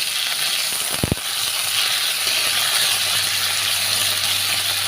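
Sliced beef sizzling as it fries in hot garlic oil, a steady hiss, with a knock of a utensil against the pan about a second in.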